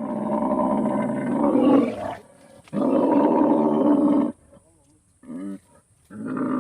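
Lion roaring: two long, loud roars followed by two short grunts near the end.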